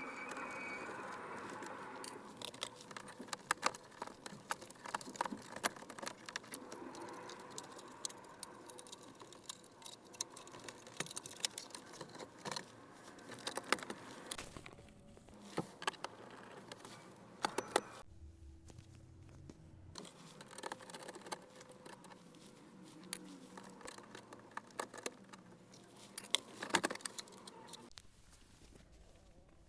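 Hands and small tools working on plastic dashboard trim and panels: an irregular run of clicks, taps and light rattles.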